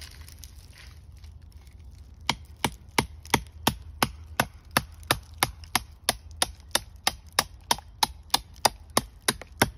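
A hatchet is being driven into a rotten, resin-soaked pine stump to split out fatwood. About two seconds in, sharp blows on the wood begin at an even pace of roughly three a second.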